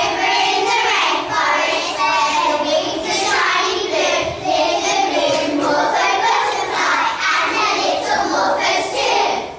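A group of young children singing together.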